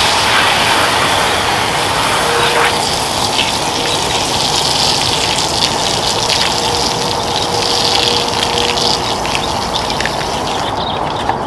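Hand-held foam sprayer hissing steadily as it sprays cleaning foam, cutting off near the end.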